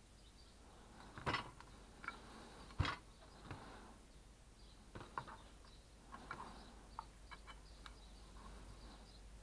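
Metal parts of a disassembled Iskra hand-held circular saw being handled on a wooden workbench: two sharp knocks, about one and three seconds in, then a run of lighter clicks and taps.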